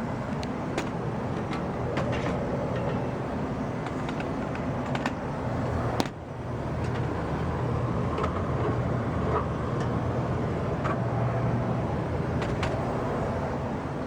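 1994 Tempstar SP80 gas furnace running with its burners lit and blower fan on: a steady low hum and air rush, with a few light clicks and a brief dip about six seconds in.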